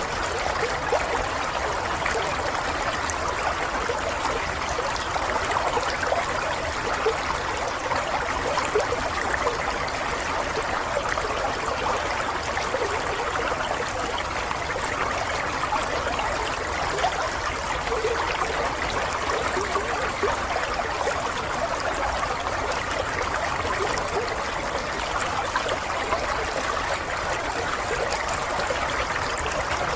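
Running water flowing steadily, with a continuous bubbling babble and small splashes.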